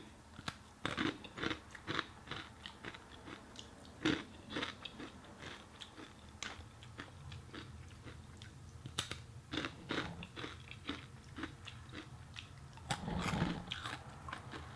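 Close-miked chewing of crunchy food: irregular sharp crunches and bites with wet mouth sounds, a louder run of chewing near the end.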